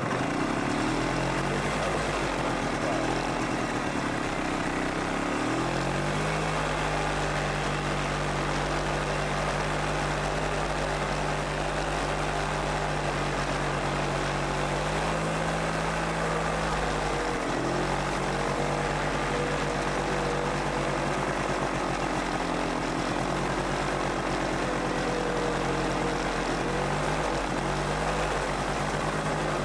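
ATV engine running steadily as it is ridden, its pitch stepping up about six seconds in and dipping and shifting a few more times with changes in throttle.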